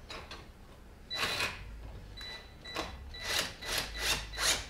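A run of short scraping or clicking strokes from hand work on the motorcycle's front fork. They begin about a second in and come faster toward the end, at about three a second.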